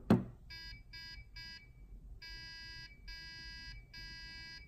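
Electronic buzzer beeping Morse code SOS: three short beeps, then three long beeps, the pattern repeating with three more short beeps. A loud sharp click comes just at the start.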